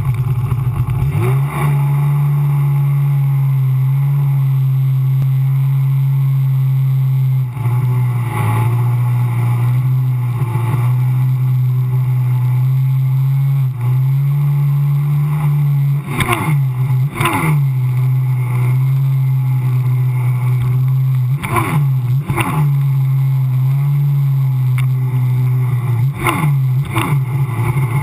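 Sea-Doo personal watercraft running at speed, its engine a steady drone whose pitch dips and climbs back several times as it crosses waves. Water splashes sharply at those moments.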